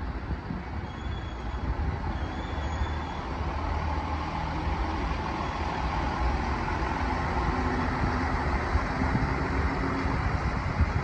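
Network Rail Windhoff multi-purpose vehicle DR98008 passing close by, its diesel engine running with wheels rumbling on the rails, growing gradually louder.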